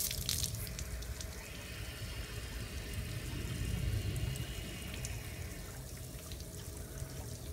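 Water at an outdoor hose spigot as its valve is turned by hand: the spray from the fitting falls away in the first moment, leaving a faint hiss of water through the valve that fades out about five seconds in.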